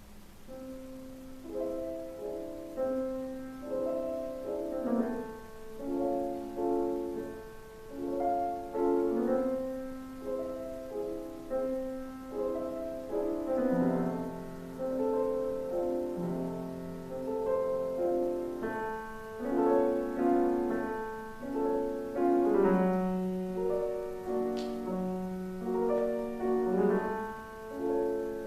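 Solo acoustic piano playing slow, sustained chords and melody notes at a moderate loudness.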